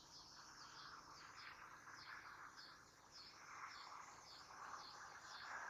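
Near silence: faint outdoor ambience, with high-pitched chirping repeating several times a second over a soft, steady hiss.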